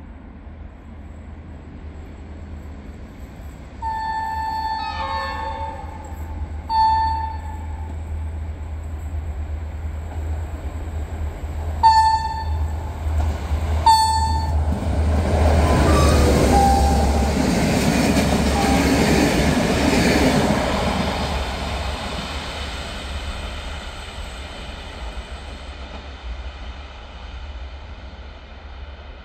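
GM diesel locomotive 1324 sounding its horn: one long blast about four seconds in, then three short ones. Its engine hum and the train's wheels then swell into a loud passing rumble that fades away.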